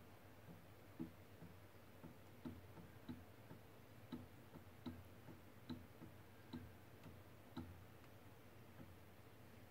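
Faint short ticks, about one a second and stopping near the end, from a CoreXY 3D printer's stepper-driven carriage making small repeated moves against a dial gauge to check that the kinematics are repeatable.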